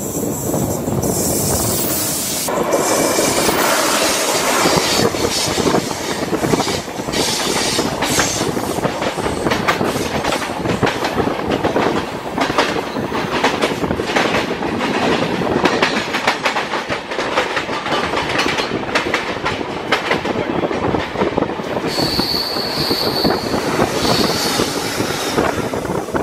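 Passenger train running downhill, with rushing wind and rapid wheel clatter over the rails, while a long train on the next track passes close alongside. A few seconds before the end a high wheel squeal rings out.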